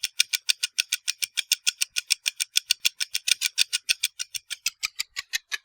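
Rapid, even ticking sound effect, about eight crisp clicks a second, slowing slightly near the end.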